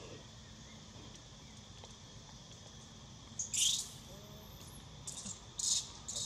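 Steady drone of insects, with a run of short, high-pitched squeaky calls starting about halfway through and coming three or four times.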